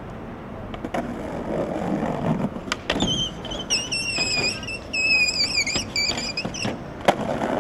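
Skateboard wheels rolling on pavement, a few sharp clacks of the board, then the deck sliding along a concrete ledge with a wavering high-pitched screech that comes in several stretches for about three and a half seconds, ending in another clack.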